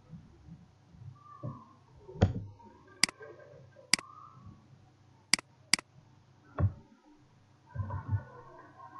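Computer mouse button clicking sharply four times, the last two close together, mixed with a few dull thumps; the loudest thump comes about two seconds in.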